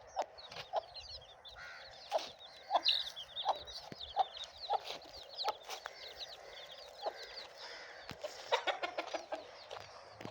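Chickens clucking in short repeated notes, with busy high-pitched chirping going on above them and scattered light clicks, a quick run of them near the end.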